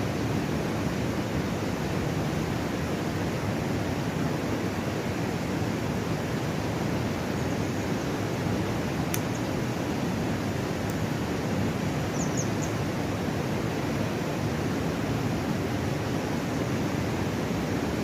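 River rapids rushing steadily, an even wash of water noise that never changes in level. A few faint high chirps and two small clicks sound around the middle.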